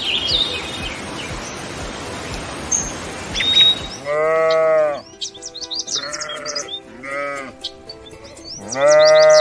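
Sheep bleating: one long bleat about four seconds in, two short ones after it, and a long, loud bleat near the end. High bird chirps come in between, and a steady hiss runs before the first bleat.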